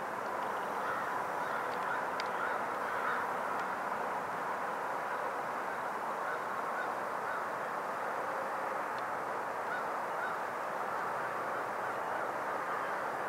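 A large flock of geese honking in a dense, steady, distant chorus, many calls overlapping with no breaks.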